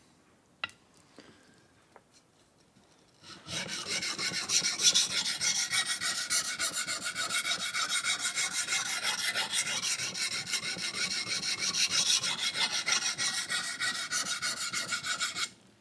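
Steel knife blade stroked rapidly back and forth on a wet medium-grit diamond hone: a steady run of rasping scrapes, sharpening the second side of the edge after a burr has been raised on the first. The strokes start about three seconds in, after a few faint clicks, and stop just before the end.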